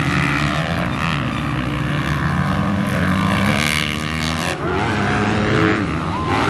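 Several motocross dirt bike engines revving hard, their pitch climbing and dropping again and again. The sound changes abruptly about four and a half seconds in.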